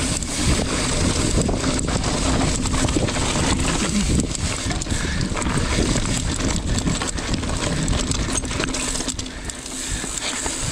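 Mountain bike riding along a rough dirt trail: wind buffeting the camera's microphone, with tyres rolling over rocks and the bike rattling in a steady stream of clicks and knocks, easing briefly near the end.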